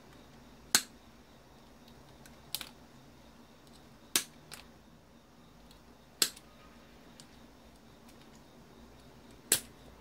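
Sharp plastic clicks and snaps as small vacuum-cleaner parts are pried apart with a screwdriver, about five loud ones a couple of seconds apart with fainter ticks between.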